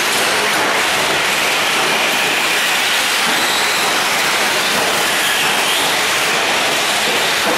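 Electric 4WD radio-control short-course trucks racing on a dirt track: a steady hiss of tyre noise with faint, wavering whines from the electric motors.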